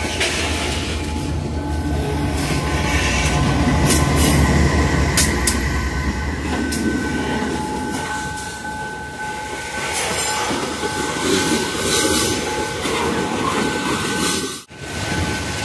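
Loaded freight train of hopper cars passing close by, with a mid-train diesel locomotive going past: a heavy engine rumble that peaks in the first half, steel wheels running over the rails with a steady high squeal, and a few sharp clanks about four to six seconds in.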